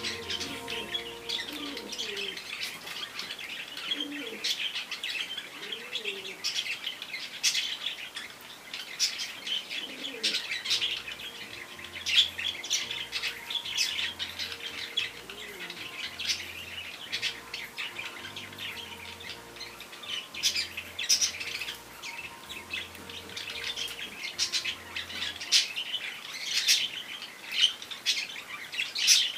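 Small birds chirping busily and continuously, with a few lower calls that glide up and down in pitch.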